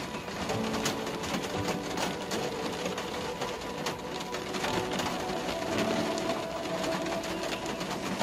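Rain pattering on a car's roof and windscreen, heard from inside the cabin while driving: a dense, steady spatter of drop impacts over road and car noise. Faint music with held notes plays underneath.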